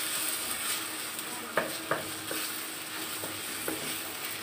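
Minced chicken sautéing in butter with onion and garlic in a non-stick wok: a steady sizzle as it is stirred, with a few sharp knocks against the pan, two of them close together about a second and a half in.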